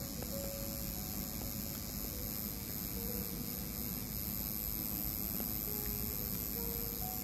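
Rotary permanent-makeup machine pen running with a steady electric hum as its needle works pigment into the lips.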